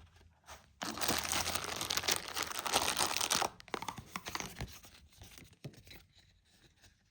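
Packaging being handled and torn open: crinkling and rustling, busiest for a couple of seconds starting about a second in, then thinning to scattered crackles.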